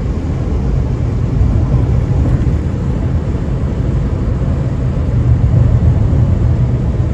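Steady low rumble of road and engine noise inside a car's cabin while driving at highway speed, swelling slightly past the middle.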